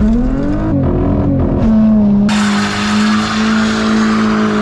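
Car engine revving up and then held steady at high revs, with a loud hissing noise joining about two seconds in.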